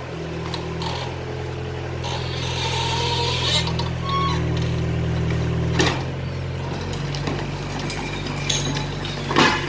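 Excavator's diesel engine running steadily under load, with sharp knocks of rubble about six seconds in and again near the end.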